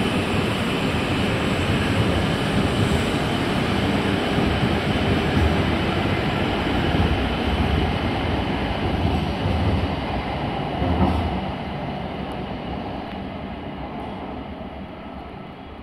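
E5 series Shinkansen running past on the tracks: a loud, steady rumble and rush of wheels and air. It peaks briefly about eleven seconds in as the end car goes by, then fades as the train draws away.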